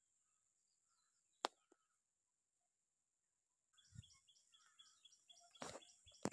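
Mostly near silence, with one sharp click about one and a half seconds in. From about four seconds in there is a fast run of short high chirps, about five a second, mixed with a few knocks and rustles.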